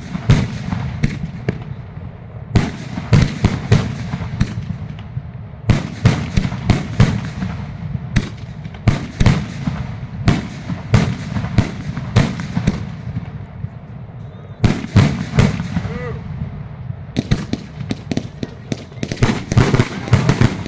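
Consumer fireworks going off in rapid volleys of sharp bangs and crackling reports, in clusters of several seconds with short lulls between them.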